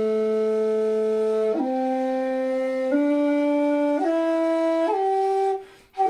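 A 2.4-shaku jinashi shakuhachi in A plays an upward scale, starting on its lowest note: five held notes, each about a second and a half long and each a step higher. After the fifth note a short breath, then a higher note begins just before the end.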